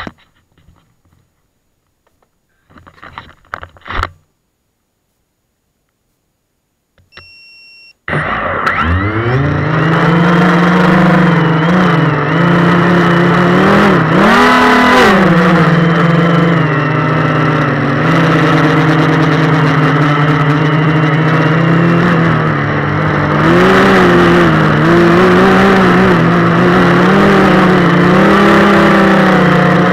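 A few handling knocks, a short beep about seven seconds in, then the three SunnySky 2204 2300KV brushless motors of a small tricopter spin up fast and run loud and close with a steady whine. The pitch dips and rises with the throttle as it flies.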